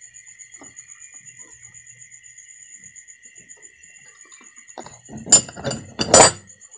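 Hard plastic knocks and clatter as a Suzuki Raider 150 Fi headlight housing is handled and moved about, with two loud knocks near the end. Under it, a steady high pulsing chirp of night insects.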